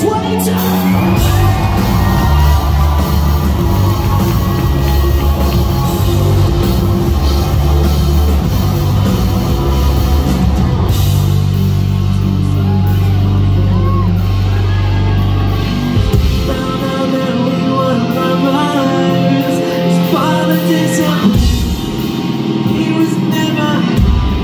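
Live rock band playing, with the vocalist singing over electric guitars and drums. The heavy low end drops out about two-thirds of the way through, leaving guitar and voice, then briefly comes back near the end.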